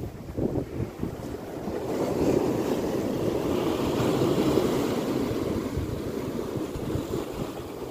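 Sea waves breaking and washing over rocks, with wind buffeting the microphone. A wave surge builds about two seconds in and slowly eases off.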